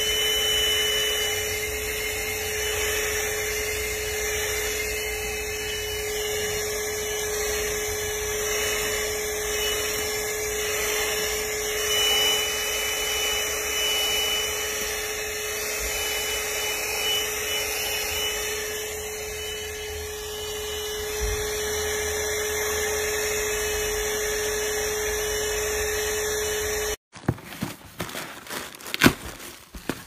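THISWORX 12-volt handheld car vacuum running steadily with a constant whine, its nozzle sucking up crumbs and grit from car floor carpet. Near the end the running stops abruptly, followed by a few scattered clicks and knocks of cardboard packaging being handled.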